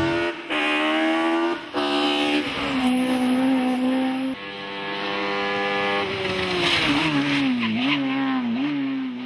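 Group H hillclimb race car engines revving hard through a hairpin. The pitch climbs under full throttle, and the sound breaks off abruptly a few times where one take cuts to the next. Near the end the pitch dips and rises twice as the driver lifts and gets back on the throttle.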